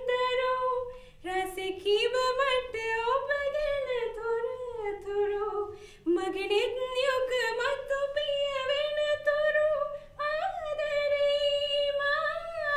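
A woman singing solo and unaccompanied, a melody in held, sliding phrases with short breaths between them about one, six and ten seconds in.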